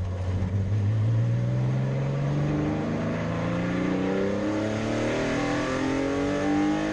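Porsche 964's air-cooled flat-six engine accelerating under load, its pitch climbing steadily in one long pull.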